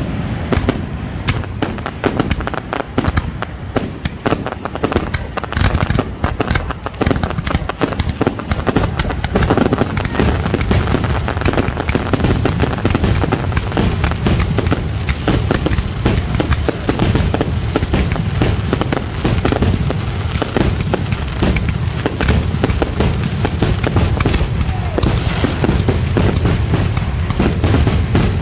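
Aerial fireworks display going off in a dense, unbroken barrage: rapid bangs of shells launching and bursting, mixed with crackling.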